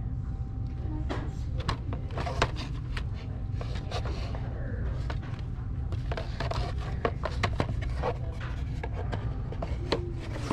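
Scattered knocks, clicks and light clatter of objects being handled, over a steady low rumble.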